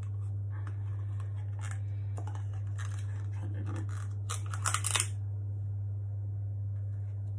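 Spoon scraping and clinking in a plastic jar of salt-and-chili seasoning, with the lid rattling, in several short scratchy bursts. The loudest comes about four and a half to five seconds in. A steady low hum runs underneath throughout.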